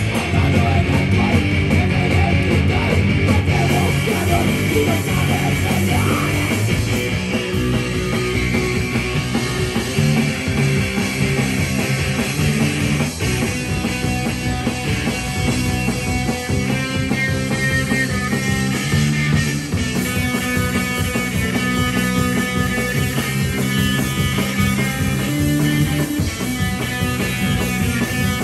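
Live rock band playing loudly: electric guitar, bass guitar and a drum kit. The song moves into a new section about 13 seconds in.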